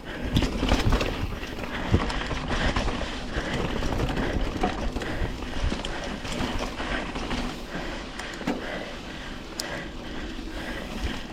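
Mountain bike rolling fast down a rough dirt trail: wind rushing over the microphone, with tyre noise and frequent knocks and rattles from the bike.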